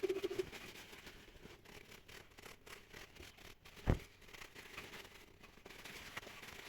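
A brush scrubbing a metal drive shaft in a run of quick scratchy strokes, cleaning rust and dirt off the part. A single dull knock comes about four seconds in.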